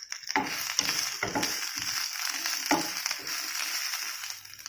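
Karpuravalli leaves, shallots and coconut frying in a hot pan as they are stirred: a steady crackling sizzle broken by scraping knocks of the spatula.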